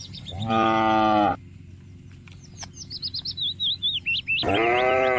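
Cattle mooing twice, each call about a second long and falling slightly in pitch, with a small bird chirping rapidly in the gap between them.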